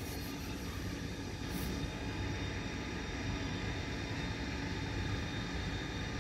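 Steady low rumble of distant traffic, with a faint hum over it.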